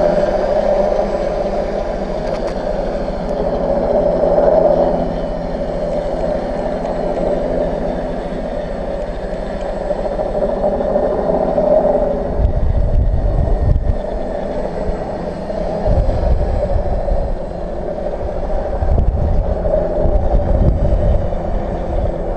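Three brushless outrunner motors (NTM 35-36A 910Kv) on a tricopter, spinning 10x4.5 propellers in flight: a steady propeller buzz that swells and fades as the throttle changes. From about twelve seconds in, low rumbling gusts of wind hit the microphone.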